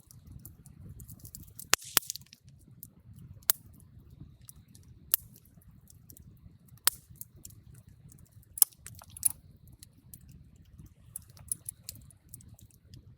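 Wood campfire burning: a low, steady rush of flames with a scatter of sharp crackles and pops from the burning wood, about seven of them loud.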